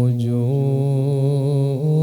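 A man chanting an Arabic devotional salutation, drawing one syllable out into a long held note that steps slightly in pitch about half a second in and again near the end.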